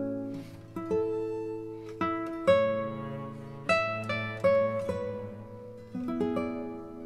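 Background instrumental music: slow melody of plucked-string notes, each ringing out and fading before the next.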